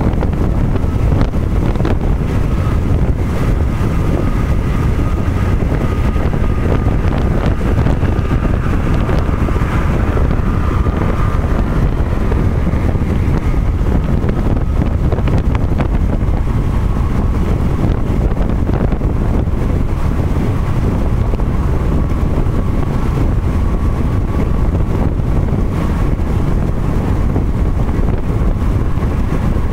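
Steady wind noise and road rumble from a car driving at highway speed, heavy in the low end. A faint steady whine runs through it.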